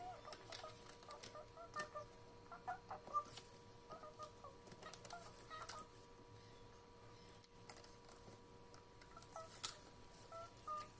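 Faint, scattered short bird calls over a steady faint hum, with a few soft clicks.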